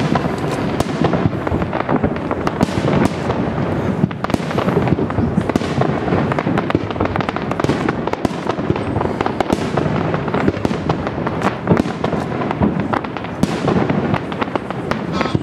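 Fireworks display: aerial shells bursting, with dense, continuous crackling and many sharp bangs in quick succession.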